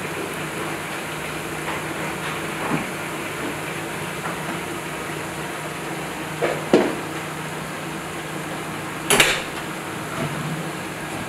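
Dishes and utensils knocking and clinking on a stainless-steel kitchen counter as a dessert is plated: a few scattered light knocks, two close together past the middle and the loudest about nine seconds in, over a steady background hum.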